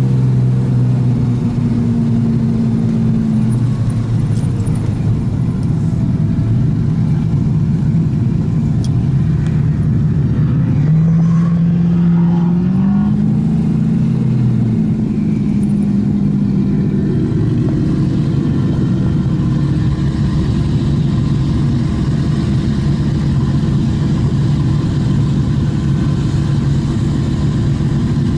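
Turbocharged Holden Commodore's 3.8 L Ecotec V6 running at low, fairly steady revs. About halfway through the engine note rises a little, then settles back.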